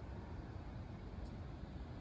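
Steady, even rush of water from Niagara's Horseshoe Falls and the churning river below it.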